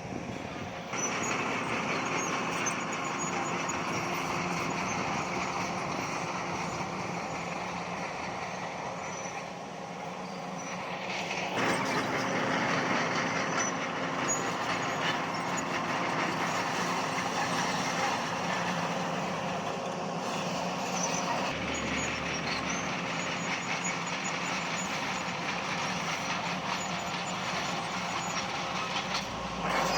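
Diesel engines of heavy earthmoving machinery working stone fill, running steadily with a constant hum. The sound steps up in loudness about a second in and again around halfway through.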